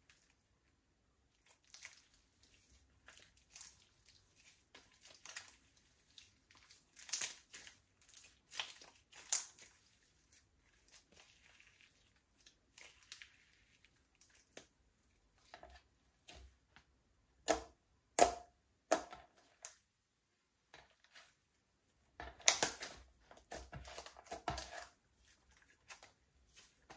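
Slime being mixed by hand, giving irregular squishing clicks and crackles, with the loudest bursts about two-thirds of the way in and again near the end.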